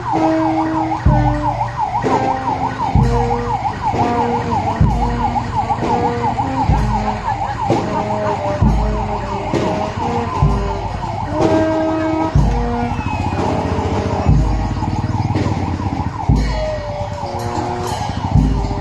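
Emergency vehicle siren sounding a fast warble, over slow procession music with held notes and a deep drum beat about every two seconds.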